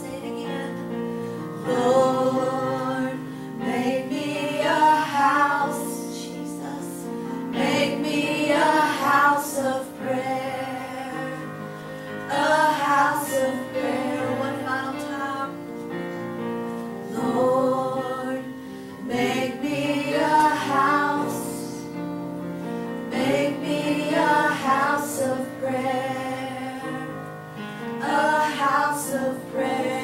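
Slow gospel worship music: a woman singing over sustained keyboard chords, her sung phrases swelling every few seconds.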